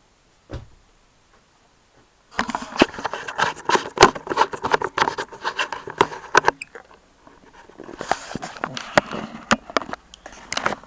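Handling noise as the camera is picked up and carried: one soft knock about half a second in, then a long run of rustling, scraping and sharp clicks, and a second, shorter run near the end.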